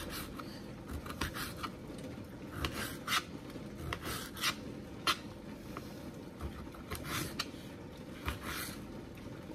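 A knife slicing grape tomatoes on a plate: irregular short taps and scrapes of the blade against the plate as each tomato is cut.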